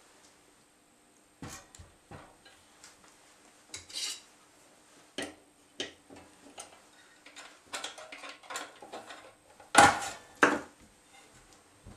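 Metal parts of a homemade Stirling-engine thermomechanical generator clinking and knocking against each other as the engine is handled and taken apart. Scattered clicks throughout, with two louder knocks in quick succession near the end.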